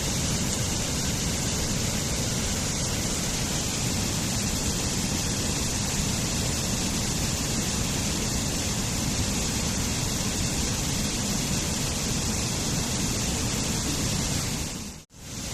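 Waterfall rushing steadily, a dense even roar of falling water. Near the end it dips out for a moment and comes straight back.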